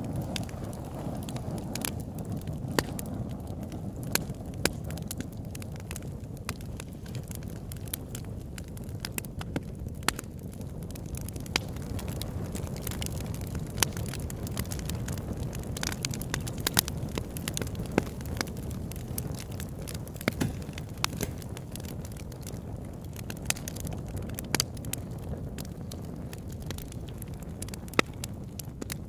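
Campfire burning: a steady low rush of flames with sharp crackles and pops at irregular intervals, a few of them louder snaps.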